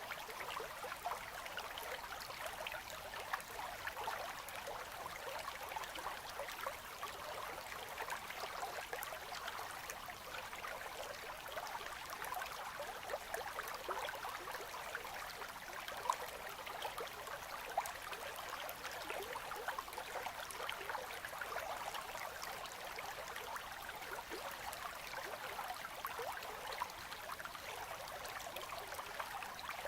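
River current flowing through ice in winter: a steady, quiet babble of trickling, gurgling water.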